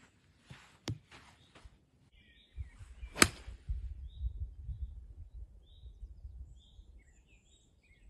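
A 3-iron strikes a golf ball off the tee with one sharp, crisp click about three seconds in, after a fainter click about a second in. A low rumble follows the strike, and birds chirp near the end.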